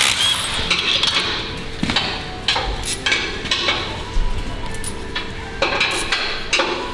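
Irregular metal clanks and clinks, several sharp knocks in a row, from tools and engine parts being handled in a workshop.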